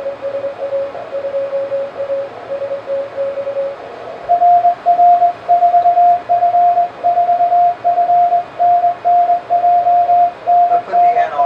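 Morse code (CW) tones from an amateur radio transceiver, keyed in dots and dashes. A fainter, lower-pitched tone keys for the first few seconds, then a louder, higher-pitched tone takes over about four seconds in.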